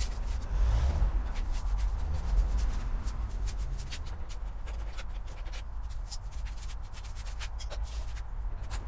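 Scattered light clicks and rubbing from hand tools on the fasteners of a Benelli TNT 125's plastic bodywork being taken off, over a low rumble.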